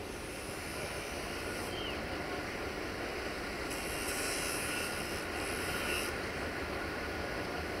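Distant diesel locomotive approaching, a GM-engined class 65 hauling a passenger train: a steady low engine drone that slowly grows louder.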